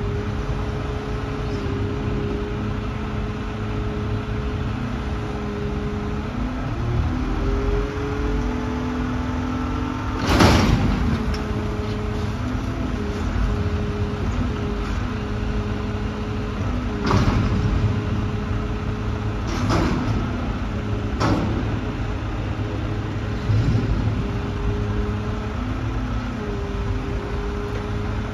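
McNeilus front-loader garbage truck's diesel engine running, revving up to drive the hydraulics as the forks raise a dumpster over the cab and lower it again. Several loud metal bangs come from the dumpster as it is emptied, the loudest about ten seconds in and a few more in the second half.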